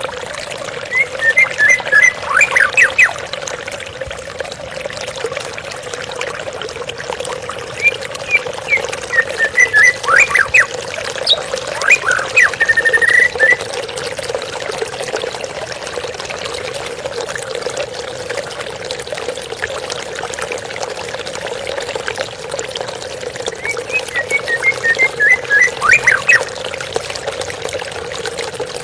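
Flowing water running steadily, with three spells of white-rumped shama calls, quick runs of short chirps, about a second in, from about eight to thirteen seconds in, and again about twenty-four seconds in.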